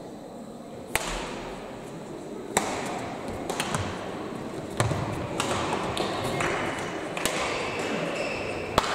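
Badminton rally in a large sports hall: rackets striking the shuttlecock, about six sharp cracks one to two seconds apart, over a background of hall chatter that grows louder.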